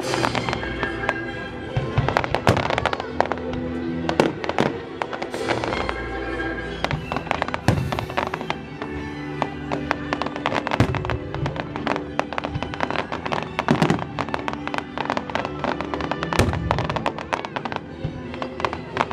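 Fireworks bursting and crackling in a dense, rapid barrage, with a few heavier bangs among the crackles, over orchestral music with held notes.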